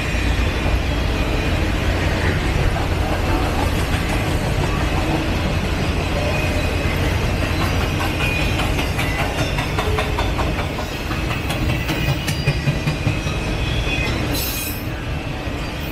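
Freight train of autorack cars rolling past: a steady rumble of steel wheels on rail, with a faint high wheel squeal. A run of clicks over the rail joints comes through in the middle, and a brief hiss follows near the end.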